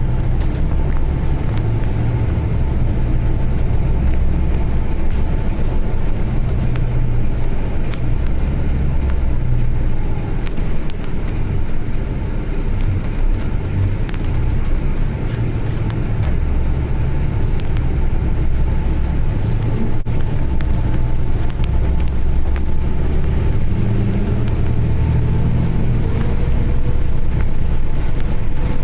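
Volvo B8 bus in motion, heard from inside: the diesel engine runs under changing load over steady road noise. Near the end the engine note rises as the bus picks up speed.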